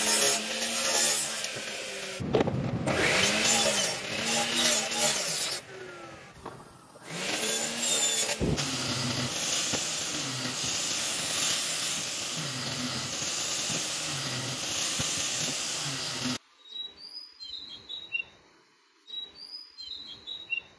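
Power tools working wood in quick succession: a miter saw running and cutting through a wooden block, then an angle grinder with a sanding disc running steadily against wood for about eight seconds. It cuts off abruptly, leaving quieter handling sounds near the end.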